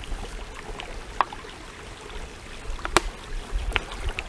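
Shallow rocky creek trickling and flowing steadily, with a few short sharp clicks over it, the loudest about three seconds in.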